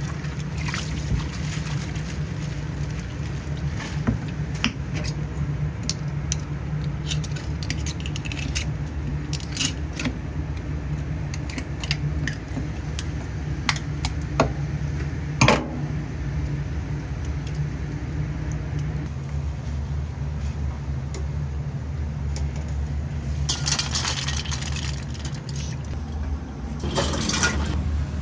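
Kitchen work sounds over a steady low hum: scattered light clicks and clinks, a sharper knock about halfway through, and two short rushes of hissing noise near the end.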